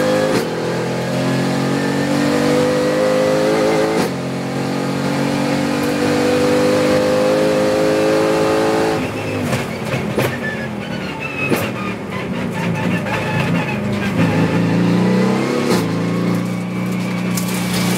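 Mercedes-AMG GT4's twin-turbo V8 heard from the cockpit at full throttle, rising in pitch, with an upshift about four seconds in. About nine seconds in it lifts off for braking, with a few sharp cracks as it drops a gear, then picks up again out of the corner.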